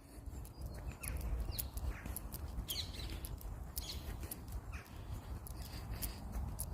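Birds calling outdoors in a series of short, falling chirps, over a steady low rumble.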